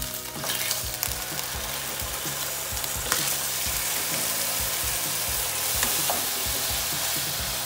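Raw pork chops sizzling steadily in hot oil in a nonstick frying pan as they are laid in to brown. A few light clicks sound through the sizzle.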